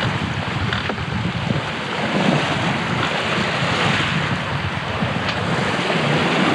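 Wind buffeting the microphone over the rush of the sea around a sailboat under way, a steady even noise with no engine or motor tone.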